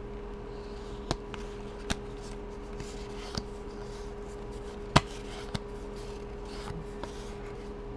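Magic: The Gathering cards being flipped through by hand, with a few sharp snaps and flicks as cards slide off the stack, the loudest about five seconds in, over a steady hum.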